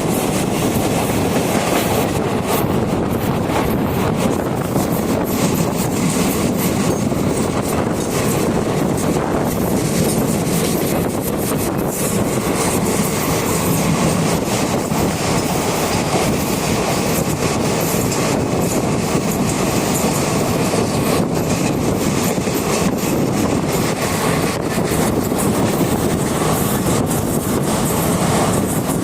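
Train running at speed: a loud, steady rumble of wheels on rail with scattered clicks and clatter from the track.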